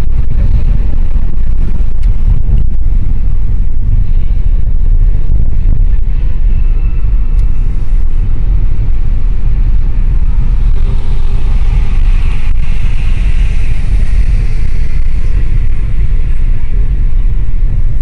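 Loud, steady low rumble of wind buffeting the phone's microphone in a moving car, mixed with the car's road noise.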